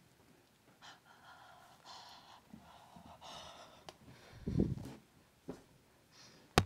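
Yorkshire terrier puppy sniffing and snorting close to the microphone in short breathy bursts. About four and a half seconds in there is a thump as it dashes past, and a sharp click near the end.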